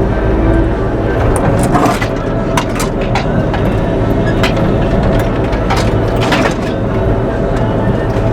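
Bobcat E42 mini excavator's diesel engine running steadily under load, with repeated sharp cracks and snaps of branches and wood as a tree is pushed over and torn out.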